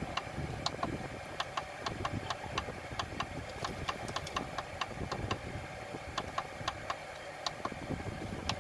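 FlashForge Creator Pro 3D printer's z-axis drive making a terrible noise as it tries to move: sharp, irregularly spaced clicks, about three or four a second, over a steady mechanical hum.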